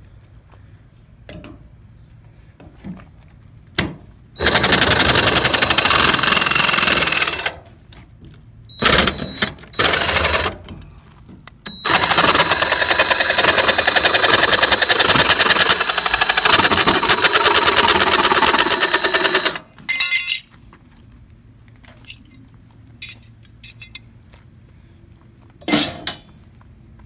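A hand-held power tool hammering rapidly against the bus's aluminum side in bursts: one of about three seconds, a few short ones, then one of about eight seconds, and a short one near the end.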